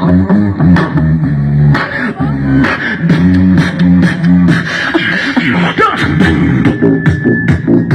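Human beatboxing: a fast, even beat of mouth-made kick and snare hits over a hummed bass line that steps between notes. Near the end a thin, steady high whistling tone joins in.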